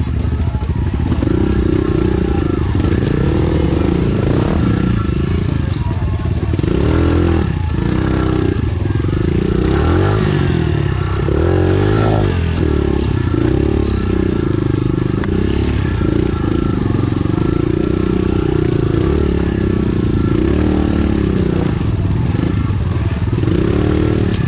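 Enduro dirt bike engine running under load, its pitch rising and falling again and again as it is revved through the gears.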